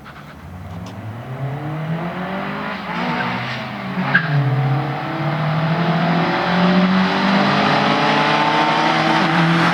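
Honda Prelude engine accelerating hard, its pitch climbing and growing louder, with a drop in pitch at a gear change about three to four seconds in before it pulls on again at full volume.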